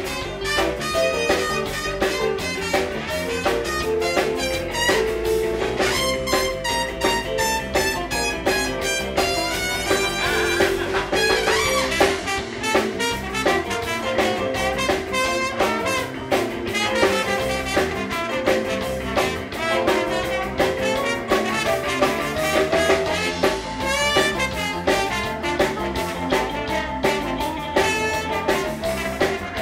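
Live blues jam band playing: a horn melody over drum kit and guitar at a steady beat.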